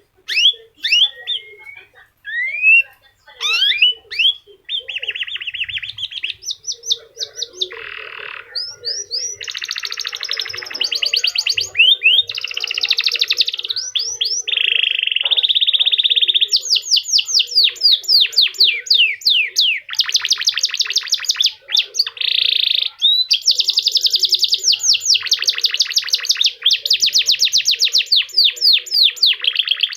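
Domestic canary (F1 kenari) singing a long, varied song. A few separate rising chirps at first, then fast trills and rolls that change to a new pattern every second or two.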